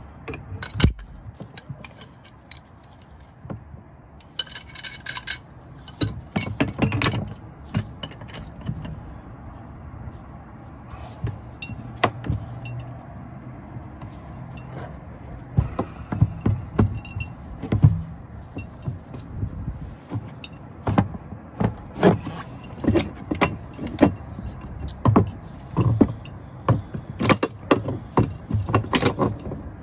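Wrench and furnace gas valve clinking and scraping, metal on metal, as the old valve is worked loose from the gas manifold: a run of short irregular clicks and knocks that come thicker in the second half.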